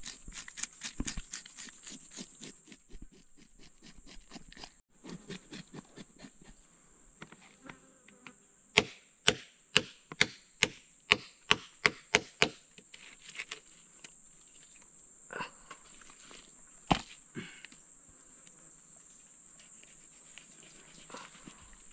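A knife scraping scales off a fish on a wooden log in quick repeated strokes, then about nine sharp chops in quick succession, about two a second, with a few more later. A steady high insect drone runs underneath.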